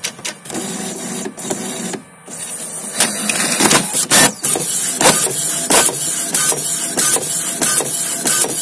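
Brother MFC 525W inkjet printer feeding a sheet and printing a nozzle check page. A steady mechanical whirr gives way, about three seconds in, to a run of repeated clicks and swishes as the print head carriage shuttles back and forth.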